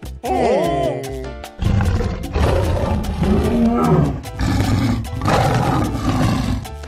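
Dinosaur roar sound effects, a few long rough roars, over background music, after a short gliding, swirling effect at the start.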